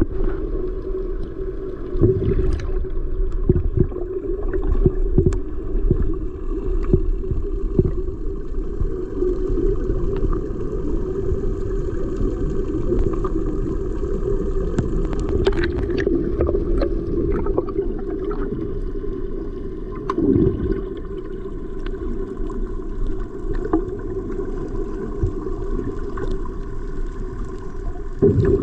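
A steady low drone, with scattered knocks and water sounds, typical of a small boat on the water.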